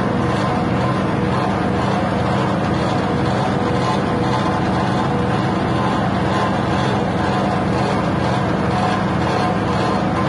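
Grass chopper machine driven by a 6.5 hp petrol engine, running steadily at a constant speed.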